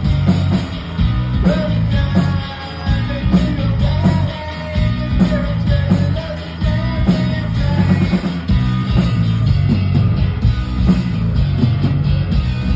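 Live rock band playing electric guitars over drums, with a man singing the lead line.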